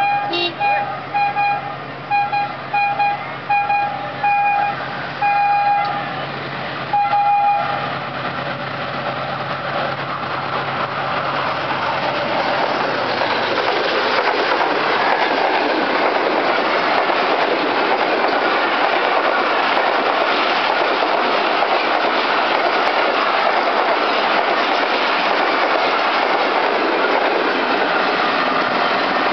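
Pakistan Railways diesel locomotive 6030 sounding its horn in a string of short blasts as it approaches, with one more blast about seven seconds in. Then the locomotive, notching up, and a long train of passenger coaches rush past, the wheel and air noise building up and then holding steady.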